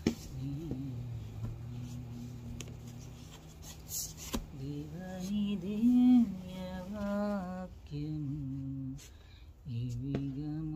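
A woman humming a slow, wordless tune in long held notes and gliding phrases, with a couple of sharp clicks near the start and about four seconds in.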